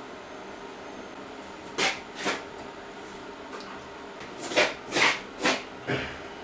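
Folding metal stand of a Lombarte TJQ10 table saw being unfolded and set upright: short clanks and rattles, two about two seconds in and four more in quick succession a couple of seconds later.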